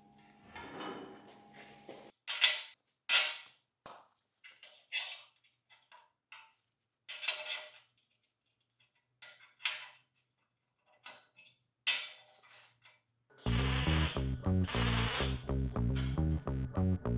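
Steel parts and magnetic welding squares knocking and clacking down onto a steel welding table as pieces are positioned: a dozen or so separate sharp knocks with pauses between. Near the end a loud, continuous dense sound starts and carries on.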